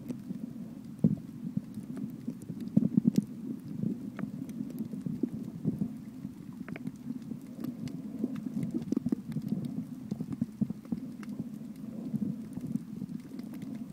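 Underwater sound over a shallow coral reef: a muffled low water rumble with irregular dull knocks and scattered sharp clicks.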